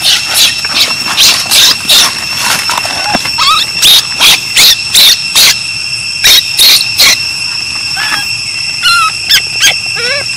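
Baby macaque screaming in a run of short, harsh cries, several a second, that thin out after about seven seconds into small rising-and-falling squeaks. A steady high whine runs underneath.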